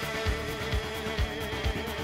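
Background music with a steady drum beat, about two beats a second, under a held, wavering melody note.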